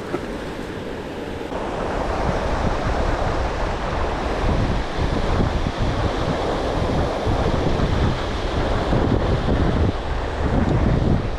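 Steady rush of flowing river water mixed with wind buffeting the microphone, getting louder about a second and a half in.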